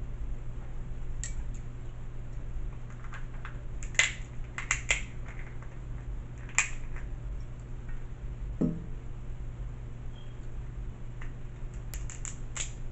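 Crab leg shell cracking and snapping as it is picked apart by hand and with a small metal pick: a scattering of sharp cracks and clicks, several close together about four seconds in and more near the end, over a steady low hum.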